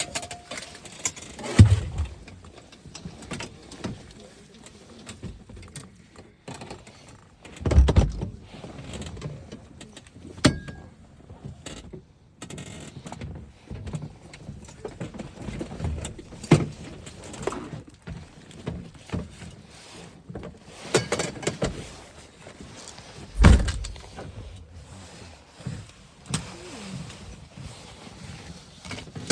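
Irregular clicks, knocks and rustling with a few heavy thumps, about 2, 8 and 23 seconds in: occupants moving about and climbing out of a parked small plane with its engine off.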